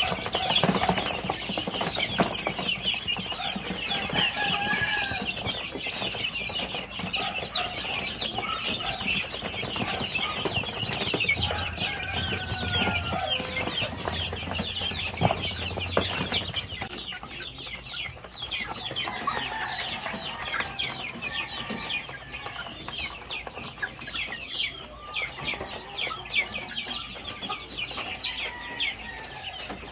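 A brood of young chicks peeping constantly: many short, high peeps overlapping one another, with occasional lower calls, growing a little quieter about halfway through.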